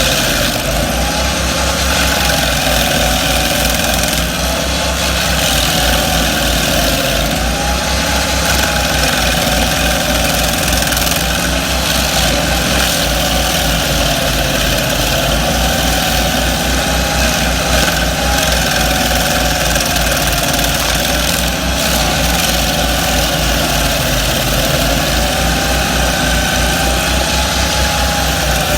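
Twin-engine stump grinder with both engines running steadily while it grinds a stump. There is a low, even engine pulse and a whine that slowly rises and falls in pitch.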